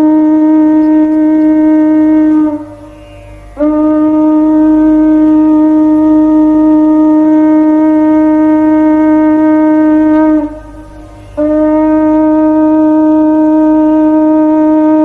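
Conch shell (shankha) blown in long, steady single-pitch blasts. Three long blasts, broken by short pauses for breath about two and a half seconds and ten and a half seconds in.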